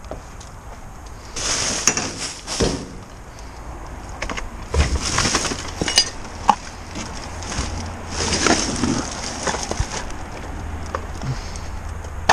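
Plastic rubbish bags rustling and hard plastic items knocking and clattering as bagged rubbish is shifted about inside a large wheelie bin, in three bursts with sharp knocks; a plastic basket is lifted out.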